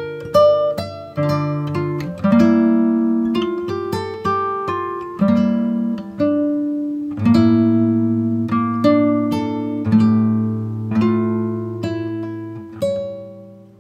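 Background music: an acoustic guitar playing chords, each note plucked and dying away.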